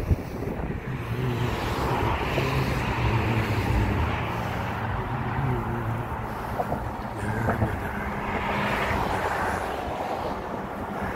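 Road traffic on the bridge's roadway: a steady rush of tyres and engines that swells as cars pass, loudest about two seconds in and again near eight seconds.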